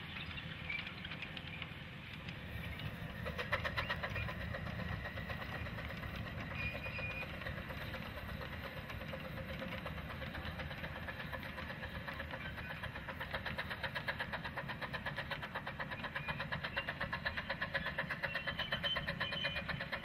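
Quarter-scale live steam train on 9-inch gauge track, hauled by a copy of Denver & Rio Grande locomotive #268, running past at a distance. It has a rhythmic beat that grows stronger and more regular toward the end.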